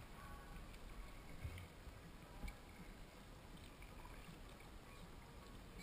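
Faint sound of a kayak being paddled on calm water: quiet water noise from the paddle strokes, with two soft low knocks about a second apart.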